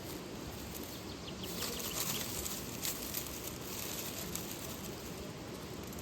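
Steady rush of flowing water, with a few sharp crackles and a brief brighter hiss of rustling in the middle.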